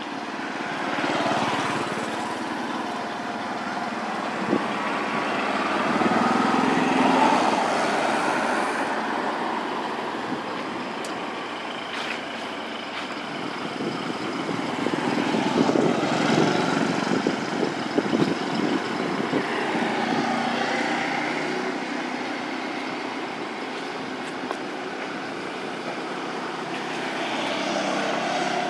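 Motor traffic passing: a rumble that swells and fades several times, with faint engine tones rising and falling as vehicles go by.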